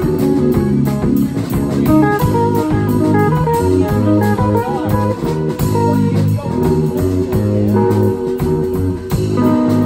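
Live instrumental trio: semi-hollow electric guitar, electric bass and drum kit playing together, with the guitar's notes over a steady bass line and drum beat.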